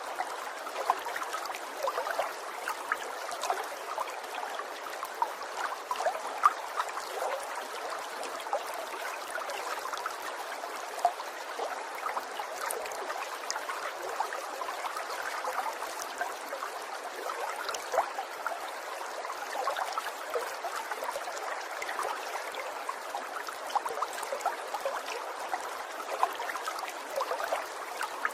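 Water trickling steadily over stones, a continuous babble with many small irregular splashes and drips.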